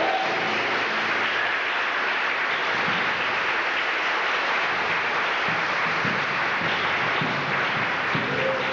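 Theatre audience applauding steadily after a musical number ends. Music starts up again near the end.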